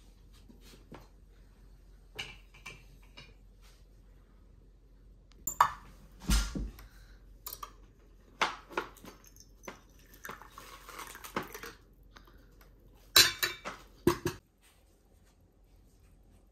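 Porcelain dishes, cutlery and a metal pot clinking and knocking on a table in a string of separate clatters, the loudest near the end. Around the middle there is a short rush of tea being poured from a stainless steel pot into a porcelain cup.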